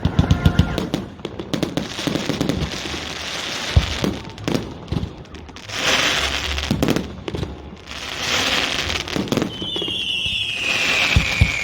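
Fireworks salute: a run of booms and pops with stretches of crackling hiss, and a falling whistle near the end.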